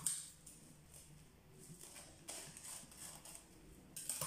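Faint rustling and crinkling of plastic cling film stretched over a glass bowl, with scissors cutting the film about four seconds in.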